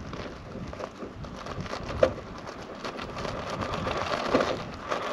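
Electric motor and gears of a Hobbytech CRX2 RC crawler whining under load as it climbs a boulder, with the tyres scrabbling and slipping on lichen. Sharp knocks come about two seconds in and again near the end, and the whine grows steadier in the second half.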